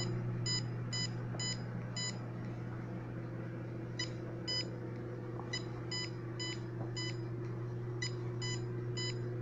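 Handheld Cornet EMF meter beeping in runs of short high beeps, about two to three a second, with gaps between runs, as it picks up radio-frequency leakage from a running microwave oven. Under the beeps is the steady low hum of the microwave oven running.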